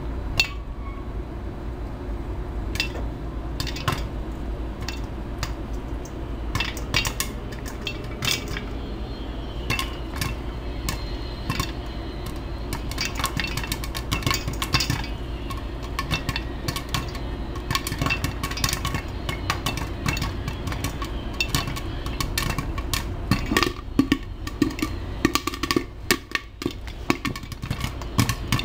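Popcorn kernels popping in hot butter in a covered pan with a glass lid. The pops are sharp and irregular, several a second, over a steady low background noise.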